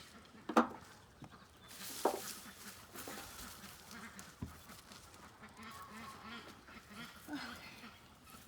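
Rustling and scraping of hands digging through garden soil, with two sharp knocks in the first couple of seconds. Faint animal calls repeat in the background near the end.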